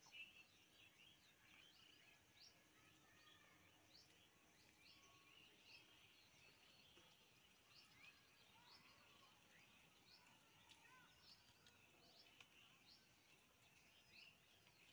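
Near silence: faint outdoor ambience with small birds chirping often, in short, quick high notes.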